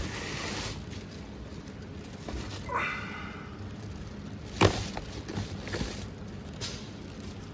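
Small plastic vape-liquid bottles being handled in a bin lined with a plastic bag: a brief rustle about three seconds in, a sharp knock of bottle on bottle a little later and a few lighter clicks, over a low steady hum.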